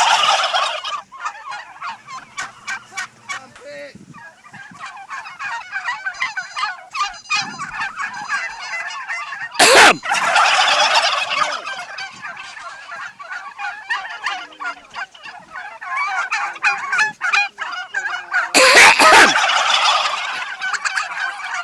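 Turkeys gobbling: two loud gobbles, about nine seconds apart, over a constant chatter of calls.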